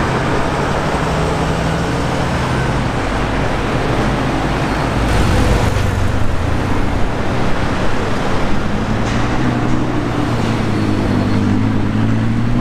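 City street traffic noise, with a bus passing close early on. About five seconds in, a steady low engine note grows louder: an Audi R8's V10 running at low revs as it rolls slowly through the traffic.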